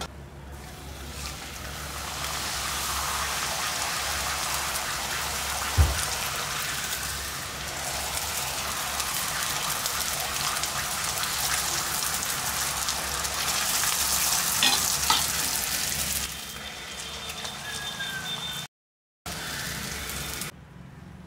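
Thin fenugreek-leaf puris sizzling as they deep-fry in hot oil in a steel kadai, the sizzle building about a second in as the dough goes into the oil and holding steady, with a single thump about six seconds in. The sizzle drops off after about sixteen seconds and cuts out for a moment near the end.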